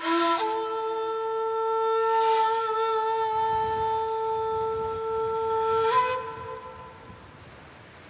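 Background music: a flute-like wind instrument plays a brief lower note, then holds one long steady note for about five and a half seconds, which bends up slightly and fades out. A low rushing noise runs underneath.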